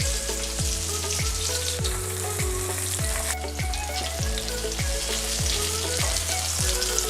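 Chicken frying in hot grease, a steady sizzle. Background hip-hop-style music with a deep dropping bass beat plays along with it.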